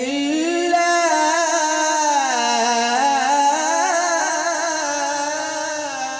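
A man's voice reciting the Quran in melodic tajweed style. He sustains and ornaments the word "Allah" at the end of "min khashyatillah" in one long, unbroken line for several seconds, the pitch rising and falling, and tapers off near the end.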